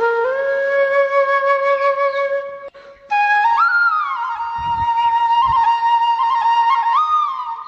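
Relaxing flute music: slow, long held notes that slide up and down between pitches, with a brief pause about three seconds in.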